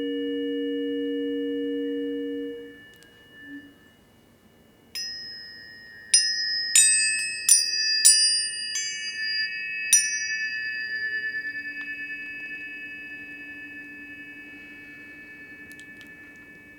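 Two low tuning forks hum in steady tones and are damped after about two and a half seconds. About five seconds in, a series of six sharp strikes sets higher-pitched tuning forks ringing, and their overlapping tones slowly fade.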